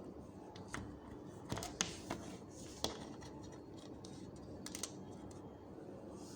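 A few scattered light clicks and taps, most of them in the first half, from multimeter test probes and leads being handled.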